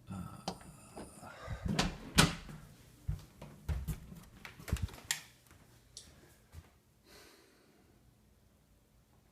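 A run of knocks, scrapes and clatter from a bucket and a flat piece slid underneath it being handled to trap a bird, loudest about two seconds in, with a short squeak in the first second; it quietens to a few faint ticks after about five seconds.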